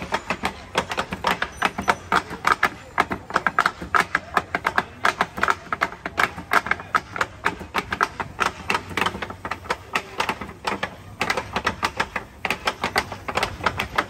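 Several wooden rolling pins clacking and knocking rapidly and irregularly against a metal-topped table as a row of cooks roll out small pieces of dough.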